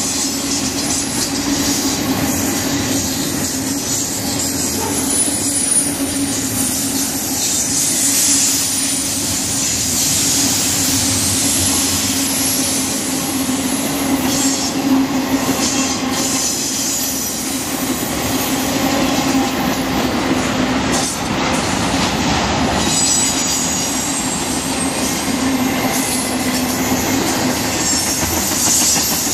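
Double-stack intermodal freight train's cars passing close by: a loud, steady rumble and rush of steel wheels on rail, with a few brief clanks.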